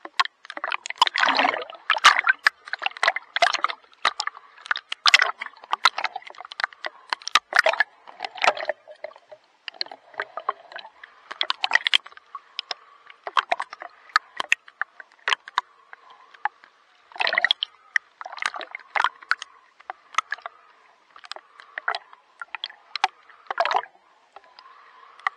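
Sea water splashing and sloshing in quick, irregular bursts.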